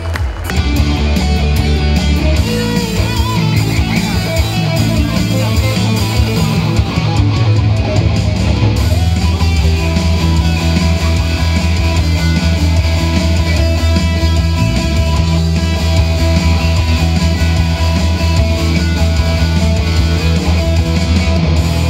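Loud rock music led by guitar over a strong, steady bass.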